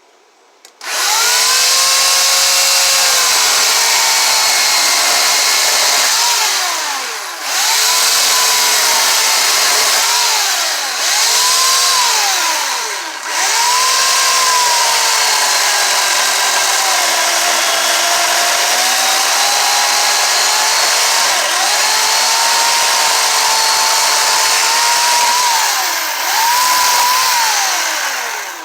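Chainsaw cutting wood at full throttle, making angled cuts around the top of a log to round off a mushroom cap. It comes in about a second in, and its pitch sags and climbs again several times as the chain bites into the wood and frees up. It cuts off just before the end.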